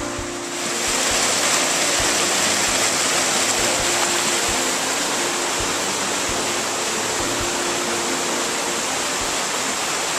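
Steady rushing of a mountain stream over boulders, swelling up about a second in, with faint background music underneath.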